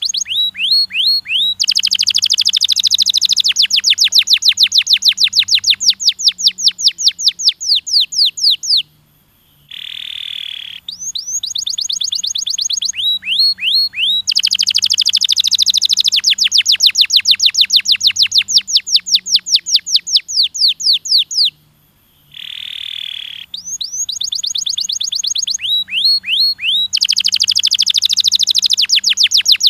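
Domestic canary singing: long rapid trills of fast repeated sweeping notes. Twice the song breaks off briefly for a single held whistle before the trills start again, the same phrase coming round about every 12 seconds.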